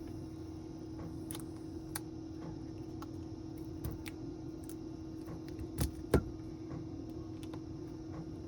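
Small clicks and taps of tools and phone parts being handled on a workbench during a smartphone repair, with two louder knocks about six seconds in, over a steady hum.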